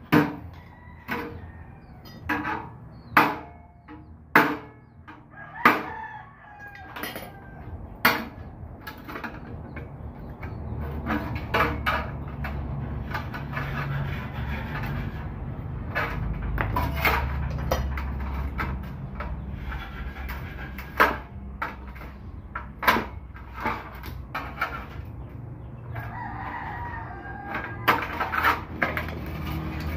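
Sharp clicks and knocks of a small steel electrical panel box being handled and its breaker assembly fitted, many in the first eight seconds, then scattered. A rooster crows in the background, and a low steady rumble sets in about ten seconds in.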